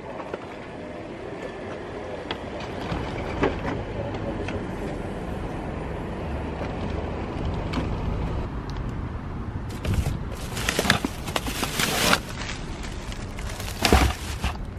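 Shopping cart rolling over pavement, its wheels rattling and rumbling under the load. Plastic shopping bags rustle, with louder crackling bursts of bag handling twice near the end.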